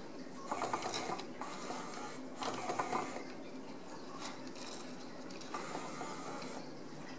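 A dangling plastic toy rattling and clicking against a wooden door as a kitten paws at it, in three short bursts.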